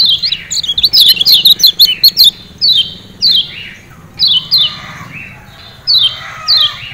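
Yellow white-eye (kecial kuning) giving sharp 'ciak ciak' calls. A quick flurry of notes comes in the first two seconds, then short, high, falling notes in pairs about every second and a half.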